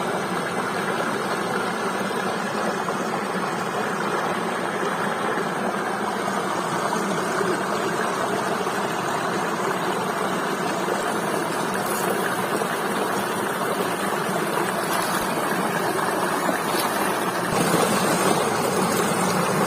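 Waterfall water rushing and splashing in a steady roar, a little louder near the end.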